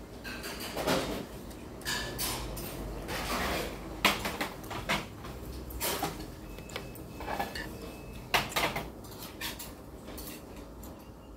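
Metal chopsticks clinking and scraping against a soup bowl: a string of irregular sharp clinks, loudest about four seconds in and again just after eight seconds.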